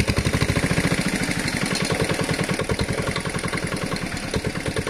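Engine of a water pump draining the pond, running steadily with a fast, even beat.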